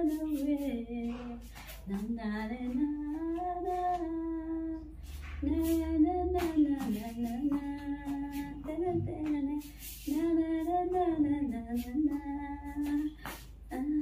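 A woman singing a tune unaccompanied, holding long notes that glide up and down between short breaths.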